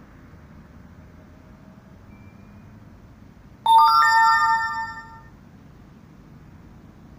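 A bright electronic chime, several tones sounding together like a phone notification or ringtone, starts suddenly about halfway in and fades out over about a second and a half. A steady low hiss runs underneath.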